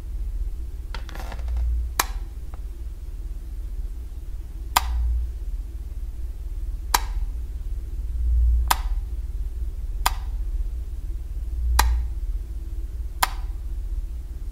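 A wall light switch flicked on and off repeatedly, seven sharp clicks about every one and a half to two seconds. A low steady hum runs underneath and swells several times.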